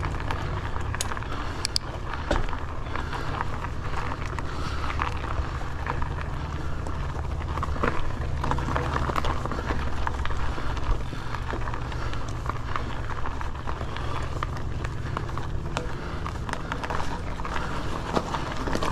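Polygon Siskiu T7 full-suspension mountain bike rolling over a loose, stony dirt trail: steady tyre noise on gravel with many small clicks and rattles over a steady low rumble.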